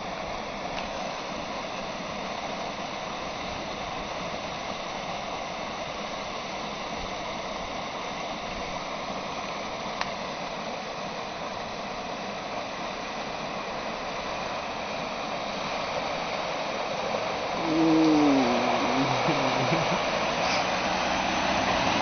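Water rushing steadily over a concrete weir spillway. In the last few seconds a Toyota Corolla sedan drives through the flooded crossing, and its tyres splashing through the water grow louder as it comes near. About eighteen seconds in there is a brief sound that falls in pitch.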